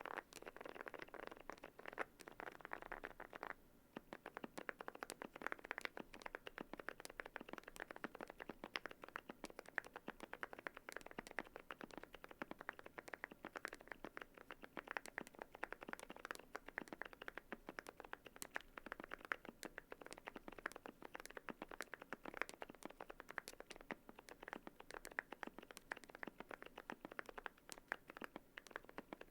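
Continuous typing on a Yunzii AL98 mechanical keyboard with lubed HMX Moksae tactile switches, PBT Cherry-profile keycaps and a foam and tape mod: a fast, dense stream of key clacks, with a short pause about four seconds in.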